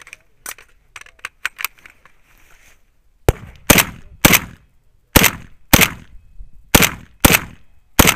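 AK-pattern rifle fired at close range, with about eight loud shots spaced half a second to a second apart, several in quick pairs, each with a short echo. A few lighter sharp clicks come first.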